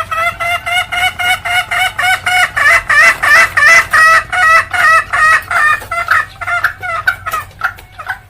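Junglefowl hen cackling ('ngekek'): a fast, even run of short sharp 'kek' notes, about four to five a second, growing louder toward the middle and fading off near the end. This is the hen's call used as a lure to get silent junglefowl to call back.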